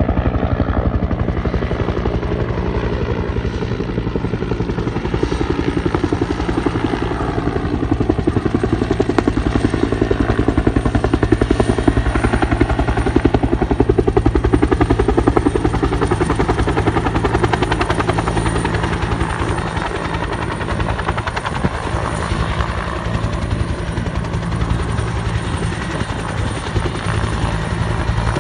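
Helicopter running steadily: a continuous engine and rotor drone with a fast, even rotor beat, swelling slightly in loudness in the middle.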